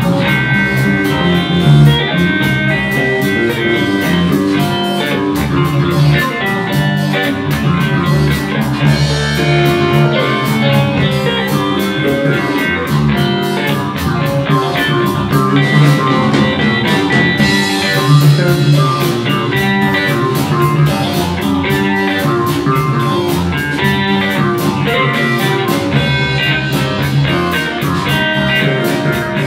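Live blues band playing: electric guitars over electric bass and a drum kit.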